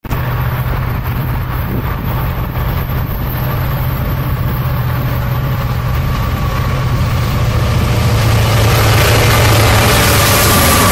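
Union Pacific diesel locomotives, an EMD SD70ACe leading, approaching and passing at the head of a freight train: a steady low engine drone that grows louder. Wheel and rail noise fills in over the last few seconds as the units come alongside, with a faint high whine near the end.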